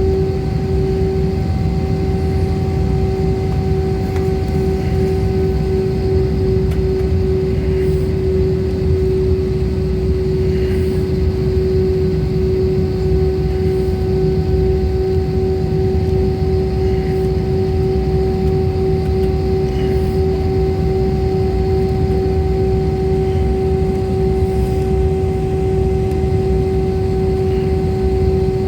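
Passenger jet's engines droning steadily, with a constant hum held at one pitch over a dense low rumble.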